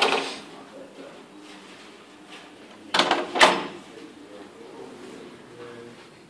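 Hotel room door sounds: a cluster of sharp clicks at the start, as of the handle and latch, then two loud clunks about half a second apart around three seconds in as the door shuts and latches.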